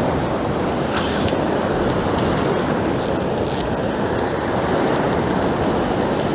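Ocean surf washing and breaking against a sandstone rock ledge, a steady rushing wash, with a few brief high hissing bursts about a second in and again around three seconds in.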